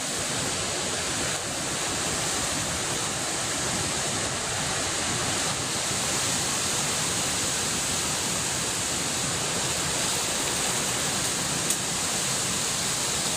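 Steady rush of hurricane rain and wind, an even hiss with no letup and one brief click near the end.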